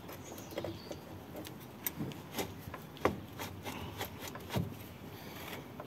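Hands handling and fitting a heat-wrapped stainless exhaust pipe: scattered knocks and clicks of metal with rubbing of the wrap, the loudest knock about halfway through.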